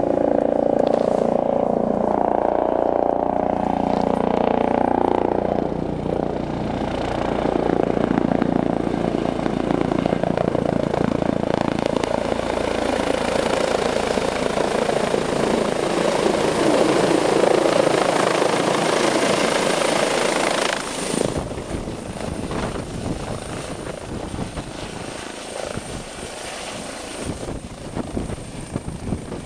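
Eurocopter EC135 twin-turbine rescue helicopter with a Fenestron tail rotor, flying in close and hovering low over snow. Its engine and rotor noise holds a steady pitched whine at first, then turns into a loud, dense rush. About twenty seconds in the level drops and the sound becomes an uneven, gusty rush of rotor downwash.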